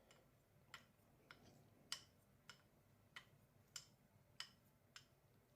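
Faint, evenly spaced clicks about every 0.6 s, nine in all: the spine of a straight razor tapping a natural finishing stone as the blade is flipped between honing strokes.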